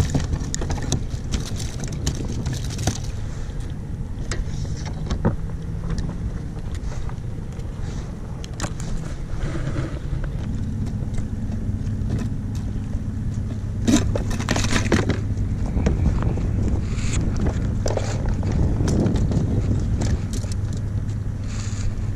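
Wind buffeting the microphone on open water, with a steady low boat-engine hum coming in about halfway through. A few knocks and rattles of fishing gear being handled in the kayak come a little later.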